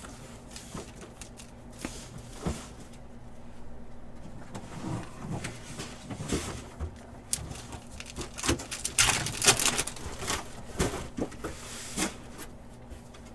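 Trading-card packs being opened and cards handled: wrappers crinkling and tearing, cards sliding and tapping, with a louder burst of crinkling about nine seconds in. A faint steady low hum runs underneath.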